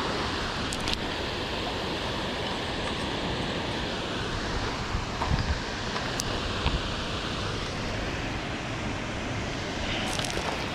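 Steady rushing noise of wind and moving water, with wind buffeting the microphone and a few faint clicks and light knocks.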